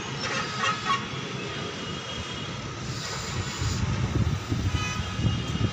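Gusty storm-front wind buffeting the microphone: a steady rushing with stronger low rumbling gusts in the second half.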